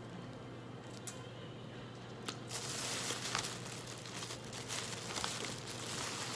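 Plastic soy sauce packet crinkling and being torn open, sharp crackles over a dense rustle. A few isolated clicks come first, then the crinkling builds about two seconds in and carries on.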